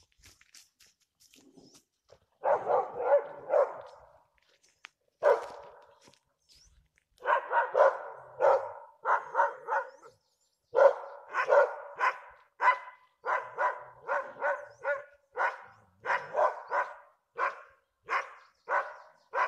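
Dogs barking at a bear cub up a tree. The barking starts a couple of seconds in and comes in quick runs of short barks.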